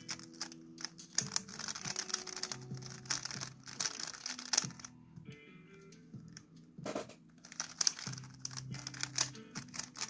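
Quick, irregular clicking and clacking of a plastic 3x3 Rubik's cube's layers being turned rapidly by hand during a speed solve. Background music with sustained low notes plays underneath.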